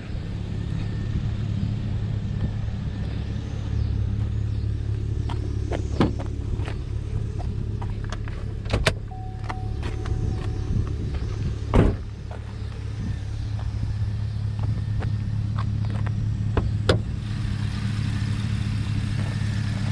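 A 2010 Chevrolet Camaro SS's 6.2-litre V8 idling steadily. Several sharp clicks and knocks come and go over it as the hood is popped and lifted, the loudest about halfway through.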